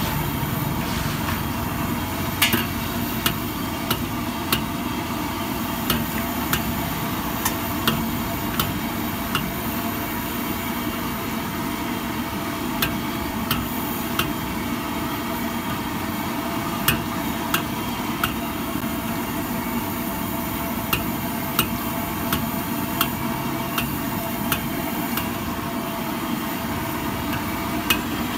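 Steel ladle clinking and scraping against a steel wok as sweet potato balls are stirred in hot oil, irregular sharp knocks about once a second over a steady frying hiss.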